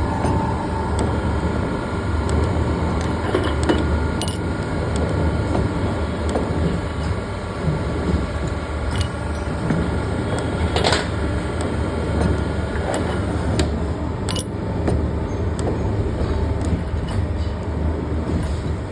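Hydraulic thread rolling machine running: a steady motor and pump hum over a low rumble, with scattered light clicks and one sharper click about eleven seconds in.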